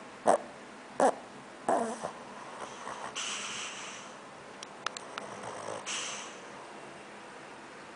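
Shih Tzu snoring: three short, loud snorts in quick succession near the start, then softer, hissing breaths with a few faint clicks.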